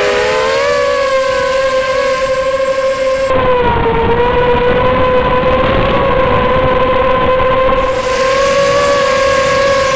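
250-size FPV racing quadcopter in flight: its brushless motors and propellers give a steady whine that wavers slightly in pitch with the throttle, dipping briefly about four seconds in, over a constant rushing noise.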